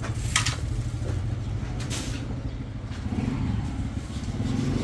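An engine running steadily with a low, fast-pulsing rumble, and two short hissy noises about half a second and two seconds in.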